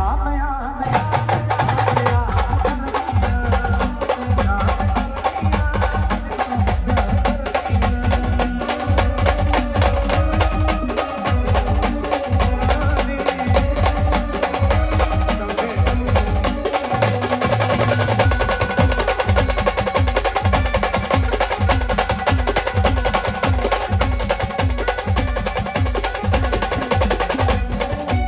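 Brass band playing an Ahirani folk song: fast, steady drum beats under a sustained melody line.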